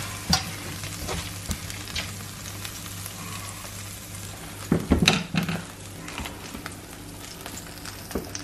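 Hot oil and chicken juices sizzling steadily in a frying pan, with a few light clicks of a utensil and one louder knock about five seconds in.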